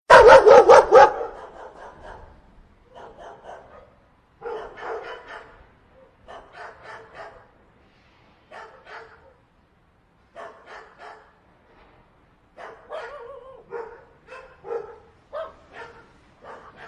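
Dog barking: a loud burst of rapid barks at the start, then runs of quieter barks and yips every second or two.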